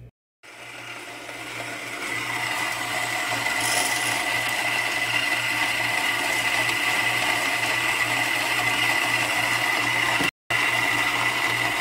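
Baratza Forté BG coffee grinder running at a coarse, Chemex-style setting, its burrs grinding coffee beans: a steady motor noise with a high tone running through it. It builds up over the first couple of seconds and breaks off briefly near the end.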